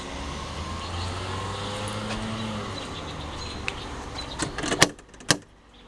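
A car running with a steady low hum, then two sharp knocks close together near the end.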